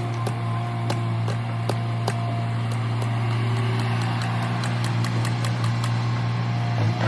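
Heavy diesel engine of an earthmoving machine running steadily with a low hum. A regular metallic clicking runs over it, about two a second, quickening after about four seconds.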